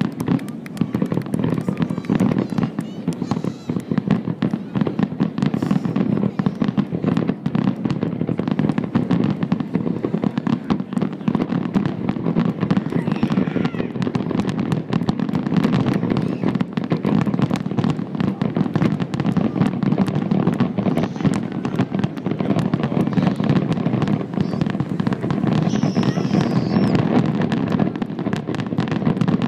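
Fireworks going off in quick succession, a dense, unbroken run of bangs and crackles.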